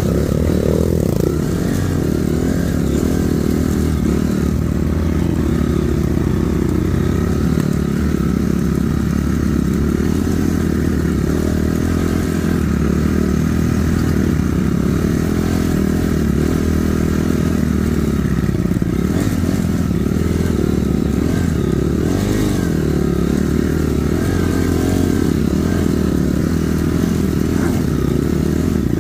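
Honda CRF250 dirt bike's single-cylinder four-stroke engine running under way, its revs rising and falling with the throttle.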